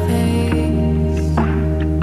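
Background music: an instrumental track with sustained notes over a steady bass, with percussive hits about every half second.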